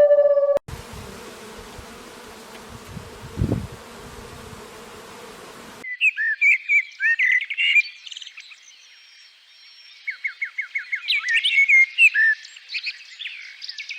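A songbird calling: many short chirps, quick rattling trills and whistled notes, starting about six seconds in after several seconds of steady hiss with one low thud.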